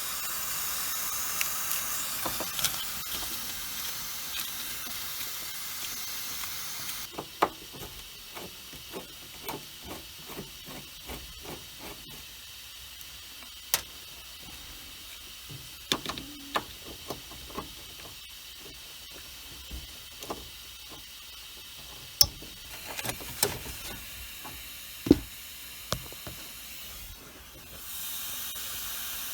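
Refrigerant hissing steadily out of a leak in a Carrier heat pump's finned coil. The hiss is louder for the first several seconds, softer through the middle and stronger again near the end, with scattered clicks and knocks of handling.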